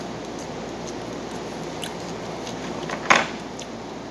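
Close-up eating with the hands: small wet mouth clicks and chewing noises over a steady background hiss, with one short, louder smack about three seconds in.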